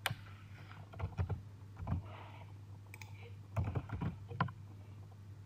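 Computer keyboard keystrokes and mouse clicks in small scattered clusters, over a steady low hum.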